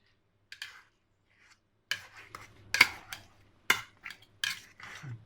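A kitchen utensil knocking and scraping in a bowl as the papaya salad ingredients are mixed, with several sharp knocks close together from about two seconds in.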